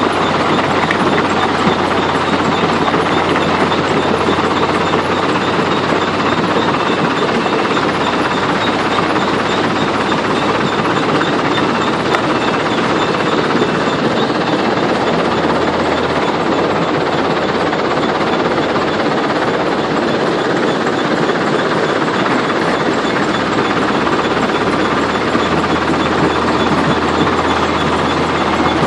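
Heavy machinery at a stone-crushing site running steadily: a loud, unbroken noise with a low engine hum underneath that shifts in level a few times.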